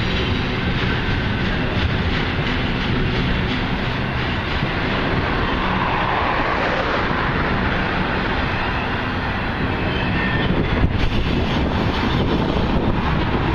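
Norfolk Southern freight train passing slowly close by: a steady rumble of wheels on rail with some clatter from the cars.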